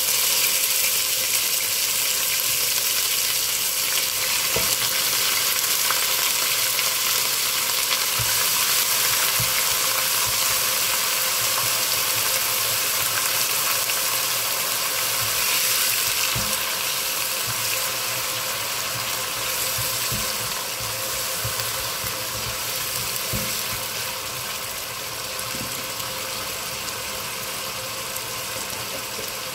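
Shallot paste frying in hot oil with whole spices and curry leaves: a steady, loud sizzle that eases a little in the second half. It is stirred with a spoon that knocks now and then against the pot.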